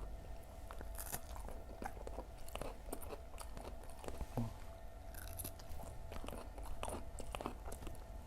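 Close-miked chewing and crunching of crispy fried Indonesian fritters (gorengan), with irregular crackling bites and mouth sounds.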